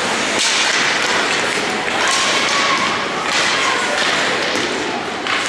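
Ice hockey play on a rink: several hissing scrapes of skate blades on the ice, with thuds and taps of sticks and puck.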